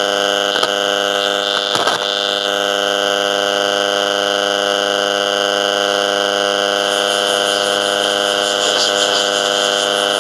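Steady electronic buzz from an AM/FM radio tuned between stations, holding one pitch with many overtones and a strong high band. It wavers briefly about half a second and two seconds in.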